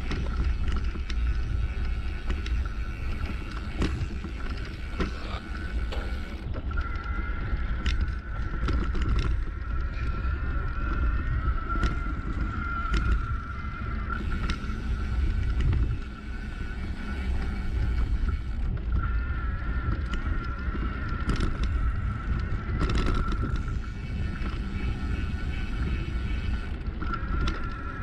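Wind buffeting the camera microphone and tyres rolling over a rough dirt track, with frequent knocks and rattles from bumps. A steady high whine runs under it.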